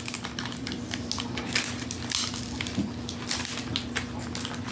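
Firework packaging being handled and pulled apart, crinkling and crackling in a dense run of small irregular clicks and rustles.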